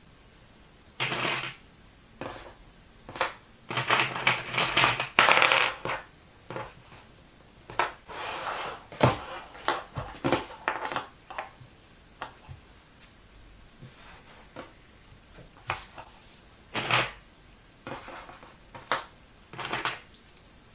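Knit fabric rustling and sliding on a tabletop, broken by small plastic clicks of Clover Wonderclips being snapped onto the seam edges, in irregular bursts.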